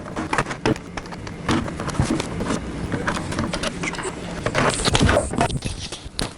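Irregular plastic clicks, knocks and scrapes of hands working on a Nerf Rival Kronos toy blaster as its plastic shell is taken apart.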